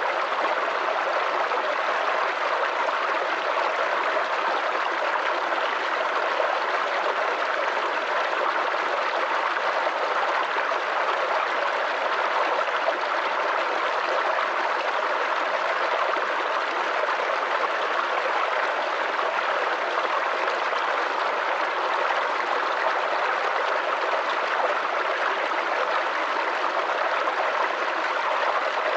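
Small forest creek babbling and trickling steadily over stones.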